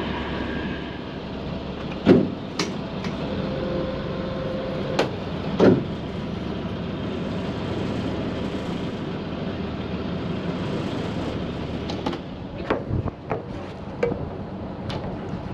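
Boat engine running steadily, with several sharp knocks and clunks on deck: two loud ones, about two and six seconds in, and a cluster near the end.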